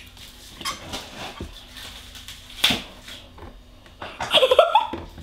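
Plastic paint bottles knocking and sliding on a wooden tabletop as they are shuffled, with one sharper knock about halfway through. About four seconds in, a girl laughs briefly behind her hand.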